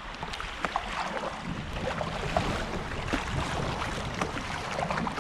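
Creek water flowing and splashing around a kayak, with the paddle blade dipping in on each stroke as short splashes scattered throughout.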